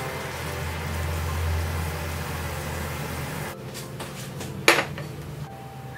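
A steady low hum that drops away about three and a half seconds in, then one sharp click near the end.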